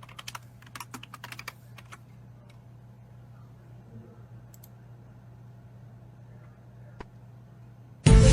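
A quick, irregular run of sharp clicks for about two seconds, then a faint steady hum with a single click about seven seconds in. Loud music starts right at the end.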